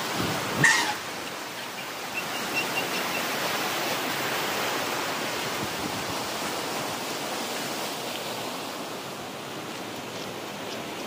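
Steady rushing of a river in flood, fast muddy water. A short, sharp, high cry with a falling pitch cuts in less than a second in.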